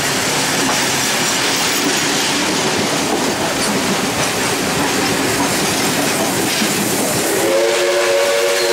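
Wooden passenger carriages of a steam-hauled train rolling past, wheels and bogies running on the rails in a steady noise. About seven and a half seconds in, a steam locomotive's whistle starts up: a steady chord of several tones held on.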